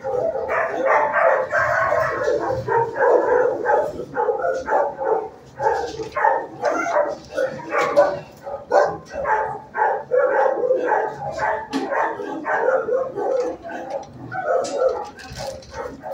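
Many dogs in a shelter kennel block barking at once: a loud, continuous chorus of overlapping barks.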